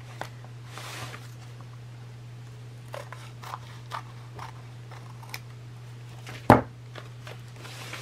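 Scissors cutting paper in a few quiet snips, with one sharper knock about six and a half seconds in, over a steady low hum.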